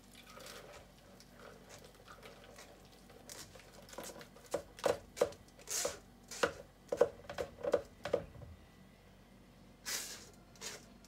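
Metal mesh strainer and spatula knocking and scraping against the rim of a plastic Vitamix blender jar as soaked oats are knocked out into it. About ten sharp knocks come in quick succession from about four to eight seconds in, and there is one more near the end.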